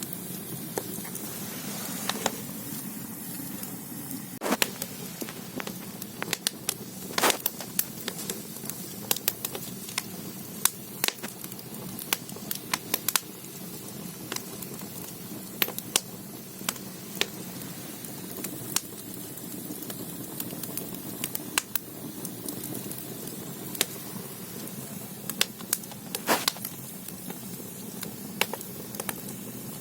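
Firewood burning in an ondol firebox: a steady low rush of flame with frequent irregular crackles and sharp pops, a few louder snaps among them.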